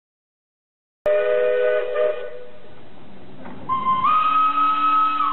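Steam locomotive whistle blown twice: a short blast sounding several notes at once about a second in, then a longer, higher whistle that steps up in pitch and holds to the end.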